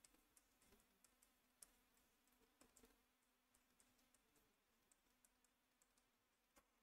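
Near silence, with faint scattered clicks of a stylus tapping and sliding on a tablet as handwriting is written.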